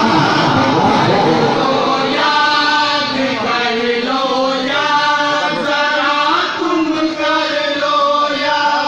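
A man chanting a devotional Urdu kalam into a microphone, sung in long held notes.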